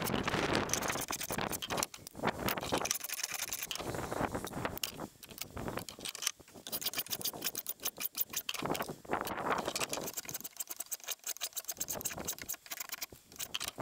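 Spokeshave cutting shavings from the edge of a curved wooden table leg: a run of short scraping strokes, one after another with brief pauses, and a longer pause shortly before the end.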